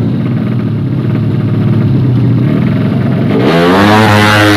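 Drag-race motorcycle engine running at a steady speed, then revving up sharply about three and a half seconds in, its pitch climbing fast.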